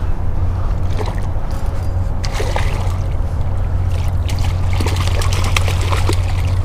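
Hooked rainbow trout thrashing and splashing at the surface close to the bank, in irregular bursts that grow busier toward the end, over a steady low rumble.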